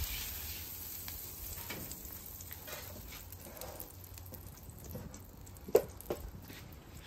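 Butter sizzling faintly on the hot steel plate of a flat-top gas griddle, bubbling as the griddle is ready for pancake batter. Two sharp knocks come close together about six seconds in.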